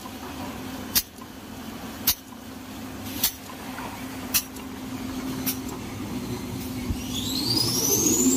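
Paper rewinding and laminating machine running with a steady hum and a sharp click about once a second. Near the end a motor whine rises steadily in pitch and the sound grows louder.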